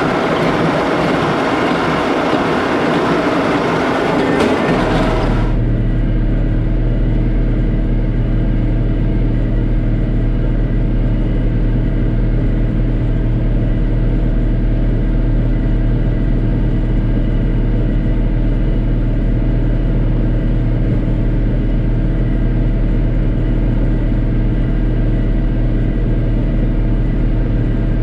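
New Holland BC5070 small square baler and its John Deere 4055 diesel tractor at work: a loud clattering rush of machinery, which about five seconds in changes abruptly to a steady tractor engine drone.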